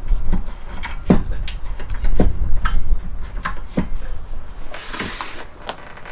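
Knocks and clicks of a Lagun table mount's metal post and clamp being handled and loosened on a plywood wall, a dozen or so separate taps, with a brief rustling scrape about five seconds in.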